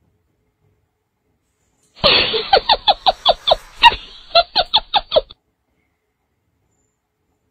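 Edited-in laughter sound effect: a string of quick pitched 'ha' bursts, about three a second, starting sharply about two seconds in and cutting off abruptly some three seconds later.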